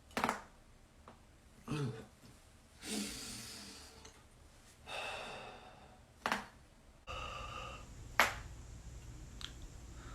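Sharp joint cracks from chiropractic adjustments: one at the start, two more about six and eight seconds in, the later one the loudest, and a smaller pop near the end. Between them a person breathes out heavily and gives a short vocal sound.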